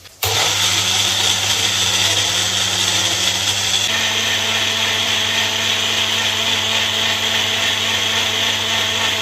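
Electric mixer-grinder running steadily, blending curd, apple and sugar into lassi. It starts abruptly just after the beginning, and its pitch steps up slightly about four seconds in.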